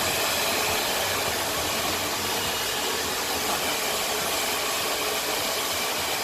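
Handheld hair dryer running steadily on a high setting, a constant blowing hiss that drowns out conversation.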